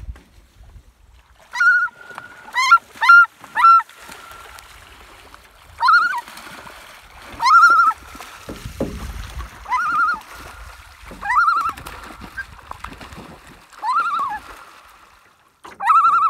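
Common loon giving loud, repeated wavering tremolo calls, about a dozen in bursts every second or two, while it runs splashing across the lake surface: the alarm display of a parent loon with its chick nearby.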